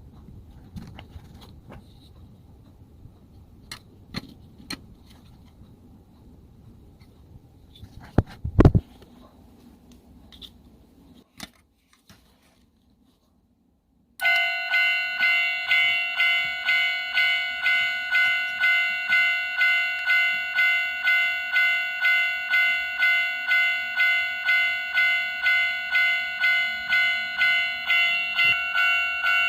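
Small clicks and taps of a plastic toy being handled, with one louder knock. About halfway through, the 1/24-scale toy level crossing's built-in electronic warning bell starts and rings steadily at about two strikes a second, a Japanese-style railway crossing alarm.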